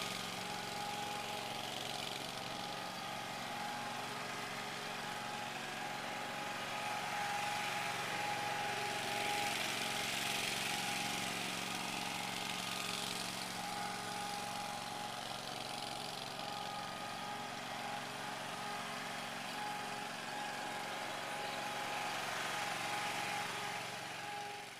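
Small engine of a ride-on infield groomer running steadily as it tows a drag mat across the infield clay.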